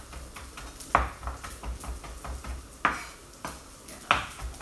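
Chef's knife chopping parsley on a wooden cutting board: three sharp knocks of the blade on the board, roughly one to two seconds apart, with lighter taps between.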